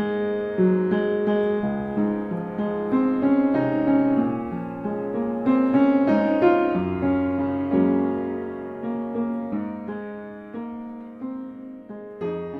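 Background piano music: a gentle melody of single notes, each struck and fading away.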